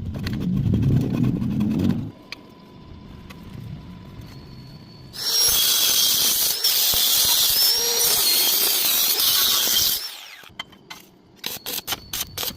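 Power tool working metal: a loud, high-pitched hissing whine that wavers for about five seconds in the middle, after a low rumble in the first two seconds, with a few sharp clinks near the end.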